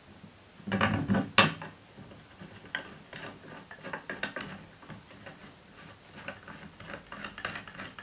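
Wooden parts of an Ashford Traditional spinning wheel knock together as they are handled, about a second in. Then come light, irregular metal clicks as a barrel bolt is worked through the rail to engage its nut in the top of the leg.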